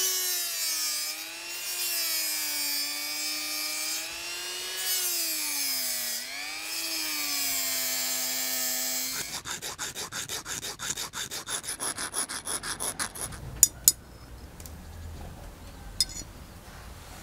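Rotary tool with a small cut-off disc whining as it cuts a slot through a metal spoon-lure blank, its pitch sagging and rising as the load changes. About nine seconds in the motor stops and rapid back-and-forth filing strokes follow, about five a second, for some four seconds, then a few sharp clicks.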